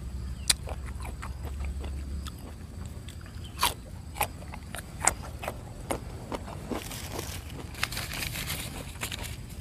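Mouth sounds of eating crunchy raw unripe fruit with sambal (rujak): a string of sharp crunches as it is bitten and chewed. The loudest crunches come in the first half, and a hissier stretch of wet chewing follows near the end.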